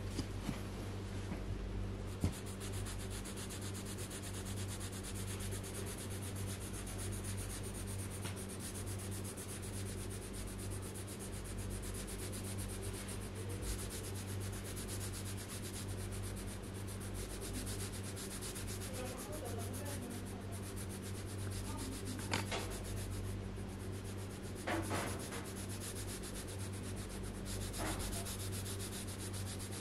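Coloured pencil scratching rapidly back and forth on paper as an area is shaded in, over a steady low hum. There are a few brief taps in the second half.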